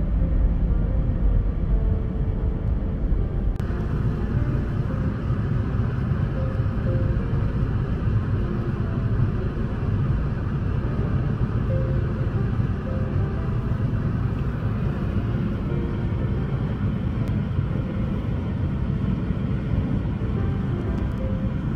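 Car cabin noise while driving on a snowy road: a steady low rumble of engine and tyres, with soft background music carrying a light melody. A brighter hiss joins about three and a half seconds in.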